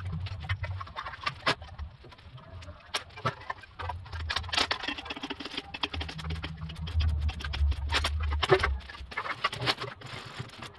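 Aluminum step parts being handled and set against a steel work table: an irregular string of clicks, knocks and clinks, with a few louder clanks around the middle and about two-thirds of the way in.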